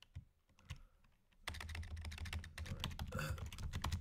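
Typing on a computer keyboard: a few scattered keystrokes, then from about a second and a half in a fast, continuous run of keystrokes.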